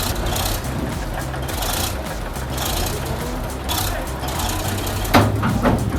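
Heavy diesel engine of a large bulldozer running steadily as it eases backward off a truck bed. A brief loud sharp sound stands out about five seconds in.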